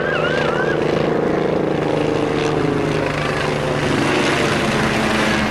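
Helicopter flying low overhead: the fast, even chopping of its main rotor over a steady engine whine, the pitch sinking slightly as it moves across.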